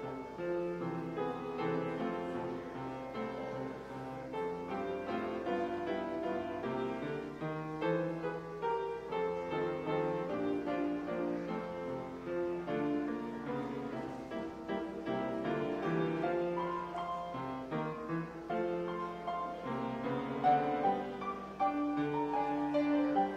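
Solo grand piano playing a continuous piece, many notes sounding together with no pause.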